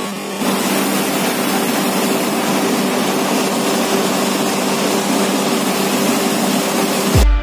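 Steady drone of a moving bus's engine and road noise heard from inside the cabin, a level hum under a loud rushing hiss. Electronic music with a heavy beat comes in right at the end.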